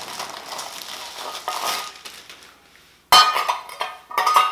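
Metal parts of a large iron bird cage being handled: scraping and rattling, then two sharp metallic clanks that ring on, about three and four seconds in.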